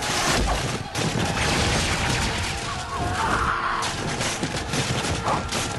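Film battle sound effects: a dense, rapid run of blows and crashes as soldiers are knocked flying, one impact after another without a break.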